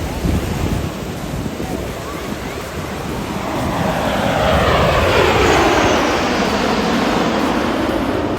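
An airplane flying past, its pitch falling as it goes by and loudest a little past halfway. Wind rumbles on the microphone throughout.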